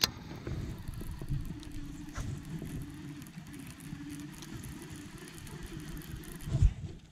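Baitcasting reel being cranked, its gears giving a steady whir that wavers slightly with the turning speed. There is a sharp click at the start and a low thump near the end.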